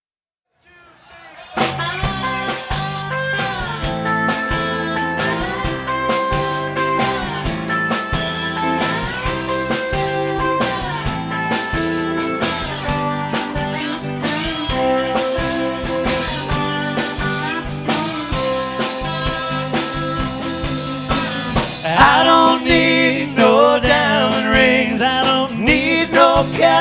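Live country-blues bar band starting up about a second and a half in: drums, bass, electric guitar and pedal steel playing an instrumental intro, with held chords sliding from one pitch to the next. A male lead vocal comes in near the end, and the music gets louder there.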